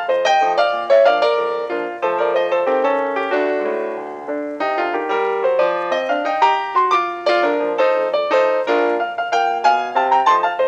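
Solo piano ragtime music playing at a lively tempo with quick, busy notes.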